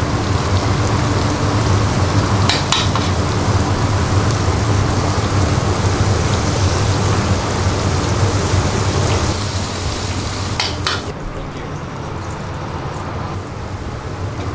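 Hot oil with ginger-garlic paste and whole spices sizzling and bubbling hard in a wok, with a few sharp metal knocks of the ladle against the wok. The sizzle eases off near the end.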